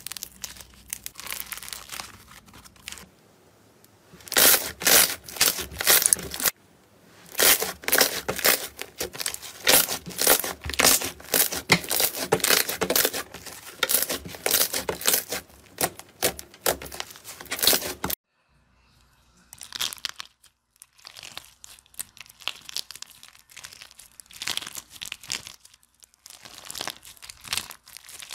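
Slimes being kneaded, pressed and stretched by hand, giving dense, rapid crackling and popping. The sound breaks off suddenly about two-thirds of the way through, then goes on more quietly and sparsely with another slime.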